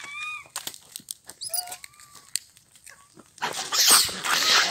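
Animal calls, a few short whining glides that bend up and down, then a loud noisy rush about three and a half seconds in.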